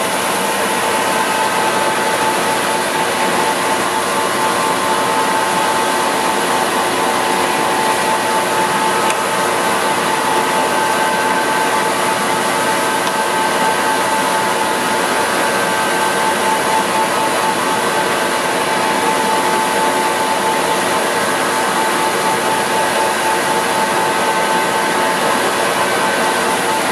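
Blanchard #27-48 48-inch vertical-spindle rotary surface grinder running: a steady machine noise with one constant tone over it.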